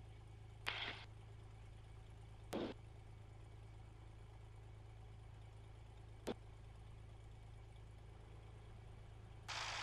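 Low steady hum of the Cessna 182RG's engine idling, heard faintly through the headset intercom, with two short bursts of radio hiss in the first few seconds and a single click about six seconds in. Near the end a radio hiss opens as a controller's transmission begins.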